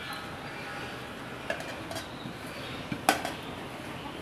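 Soft scraping and light clinks of a steel plate against a steel bowl as grated coconut is brushed off the plate by hand, with a sharper clink about three seconds in.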